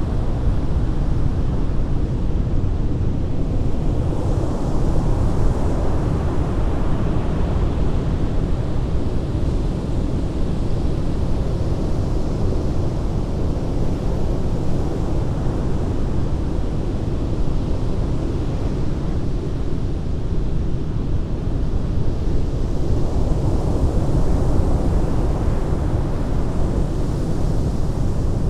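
Heavy ocean surf: a continuous low rumble of breaking waves, swelling with a hiss of wash about five seconds in and again near the end.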